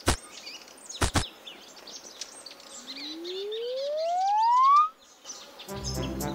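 Cartoon sound effects over forest ambience with faint bird and insect chirps: two short sharp hits, then a whistle-like tone that rises in pitch and grows louder for about two seconds before cutting off suddenly. Music starts near the end.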